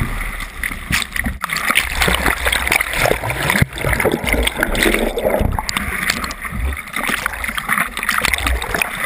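Whitewater of a breaking wave rushing and splashing over a GoPro's waterproof housing, heard muffled through the case, with heavy low buffeting as the camera goes through the foam.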